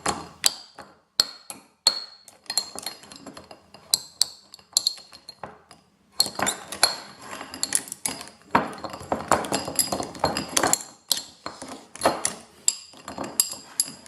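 A knife repeatedly knocking and scraping against a power cable in a bowl: a run of sharp clinks with short ringing tones, busier and scrapier in the middle.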